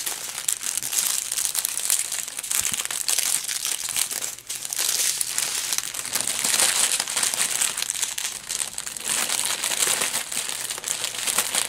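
Small plastic zip bags of diamond painting drills crinkling continuously as they are handled and sorted.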